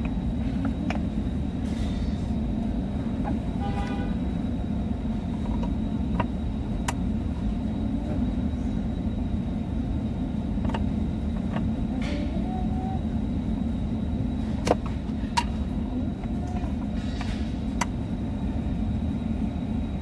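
Hard plastic center-console cup-holder trim being handled and fitted, giving scattered sharp clicks and knocks over a steady low background rumble. The loudest clicks come close together about two-thirds of the way through.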